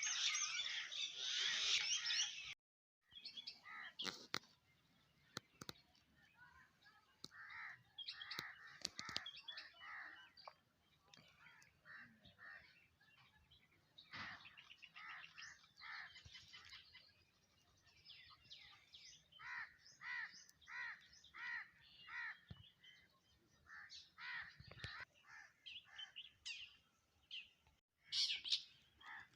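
Wild birds calling and chirping: a dense chorus of many overlapping calls at first that cuts off abruptly, then sparser separate calls including a run of evenly repeated notes, with the dense chorus coming back near the end.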